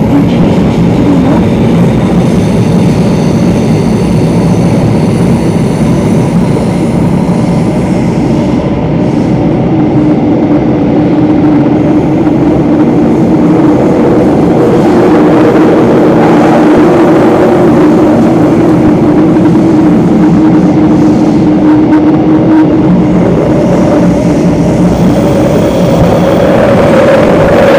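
Singapore MRT train running in a tunnel, heard from inside the car: a loud, steady rumble of wheels on rail. A humming motor tone comes in about ten seconds in and shifts higher near the end.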